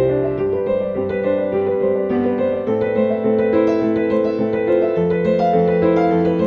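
Background music played on piano or electric piano: sustained notes and chords over a held bass.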